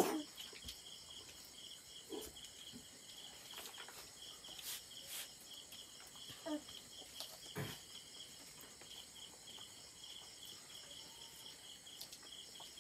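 Night insects chirping steadily in a fast pulsing trill, with a few faint clicks a few seconds in.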